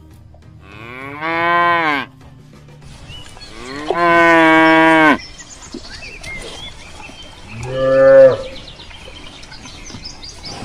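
Cow mooing three times: two long moos, then a shorter, lower one about eight seconds in.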